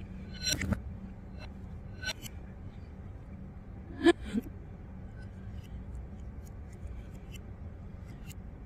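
Eating sounds: a metal fork clinking and scraping in a ceramic bowl of sauced noodles, with mouth sounds, as a handful of short sharp clicks, the loudest about four seconds in. A steady low hum runs underneath.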